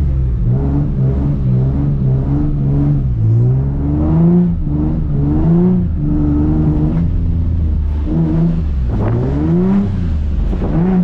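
Nissan 350Z's 3.5-litre V6 revving up and down repeatedly while drifting, its pitch climbing and dropping several times, with a sharp climb about nine seconds in.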